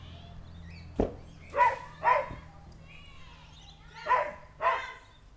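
A dog barking four times, in two pairs of quick barks, after a single sharp thump about a second in.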